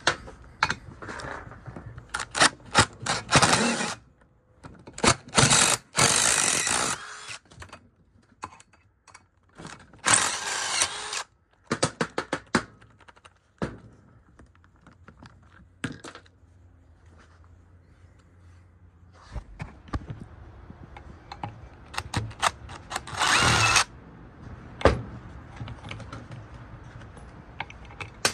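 Power drill-driver spinning in short bursts of a second or so, several times, backing fasteners out of a large electric motor's steel housing, with sharp clicks and clinks of metal parts and tools between the bursts.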